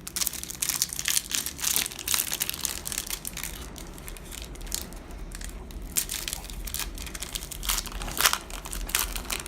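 Foil wrapper of a Yu-Gi-Oh booster pack crinkling and tearing as it is opened and crumpled in the hands: a dense, irregular run of crackles.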